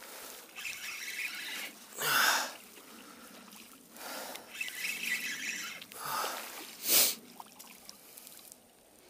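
A man breathing out heavily three times, about two seconds apart, with faint water splashing between the breaths. A short, sharp noise comes about seven seconds in.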